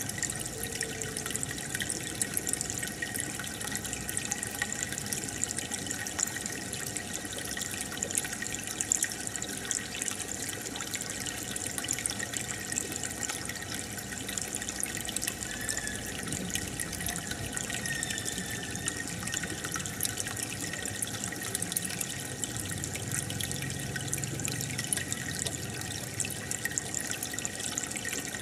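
Aquarium filter outflow splashing and bubbling steadily into the tank water, with a constant patter of small popping bubbles.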